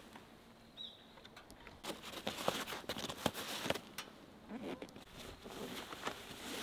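Nylon bag fabric rustling, with scattered clicks and knocks of straps and buckles as motorcycle luggage is handled. It is busiest from about two to four seconds in.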